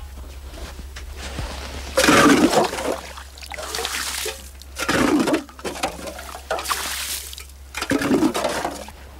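Water splashing and pouring in several short bursts, as a can is dipped into a waterhole in the snow and emptied into buckets.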